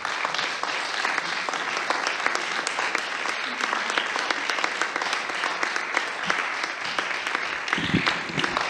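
Audience applauding: many hands clapping together in a steady, even stream.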